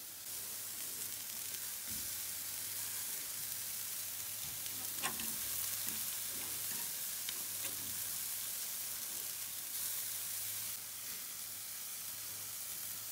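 Beef entrecote steaks sizzling steadily on a charcoal grill's grate, with a few light metallic clicks of tongs as the steaks are turned over.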